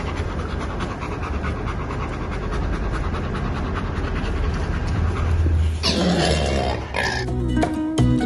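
Labrador retriever panting steadily with quick, even breaths. About six seconds in comes a short, louder vocal sound with a pitch that bends, and acoustic guitar music starts near the end.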